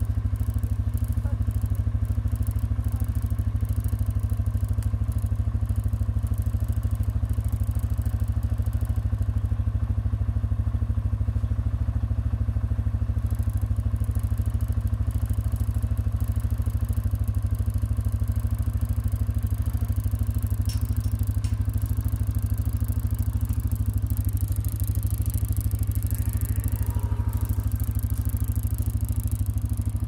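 Farm motorbike engine idling steadily.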